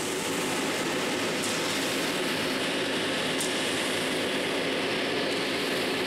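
Concrete mixer truck running, a loud steady mechanical rush from its engine and turning drum.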